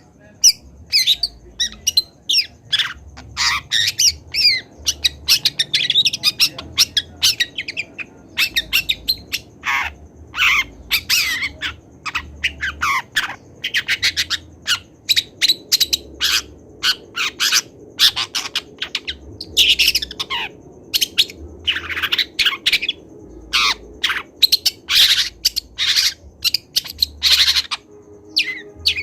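Juvenile long-tailed shrike singing a rapid, unbroken string of short chirps and harsh squawking notes: a young bird practising its song.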